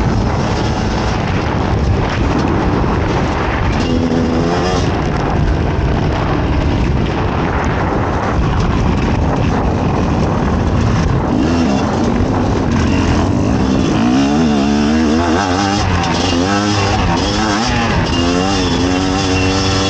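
Fantic XE 300 two-stroke enduro motorcycle engine being ridden hard off-road. It revs up and down over and over, most plainly in the second half.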